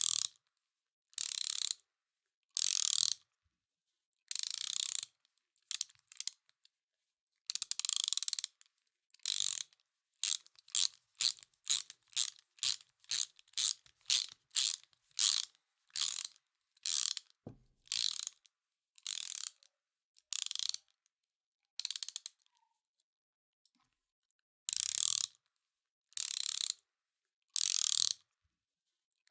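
Hand ratchet wrench being worked back and forth, each backstroke a short run of ratcheting pawl clicks with silence between strokes. The strokes are slower and longer at first, come quick and short, about two a second, in the middle, then slow again after a pause of a couple of seconds.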